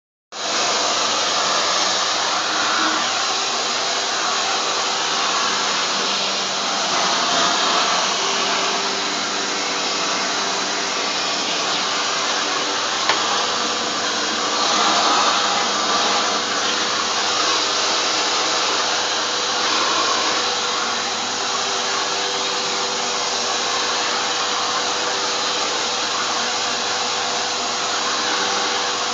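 Vacuum cleaner running steadily, a rush of air through its hose and crevice nozzle with a faint steady whine, starting abruptly at the very beginning. One brief click about halfway through.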